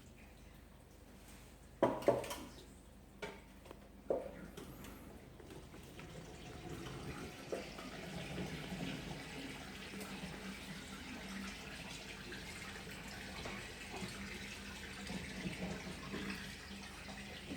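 A few sharp knocks, then water running steadily into a Hitachi SF-160XWV top-load washing machine's tub as it fills.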